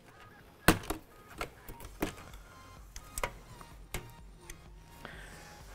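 Plastic corner cover of a cassette air conditioner's fascia panel being unclipped and lifted off, giving a series of sharp clicks and knocks, the loudest under a second in, with faint background music underneath.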